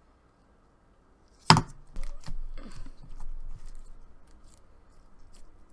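Clear slime being handled: a sharp snap about a second and a half in, then a run of smaller clicks and wet pops that fade out.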